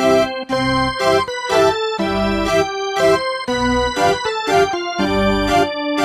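Background music: keyboard or organ-style chords over a steady beat of about two strokes a second.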